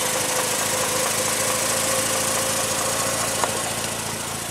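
A steady engine hum, like an engine idling, with a single sharp click about three and a half seconds in; the hum grows a little quieter near the end.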